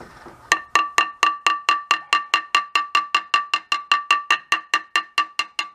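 Small ball-peen hammer tapping lightly and steadily on a new crankshaft front seal to drive it in, about four strikes a second, each with a short metallic ring. The tapping stops abruptly near the end.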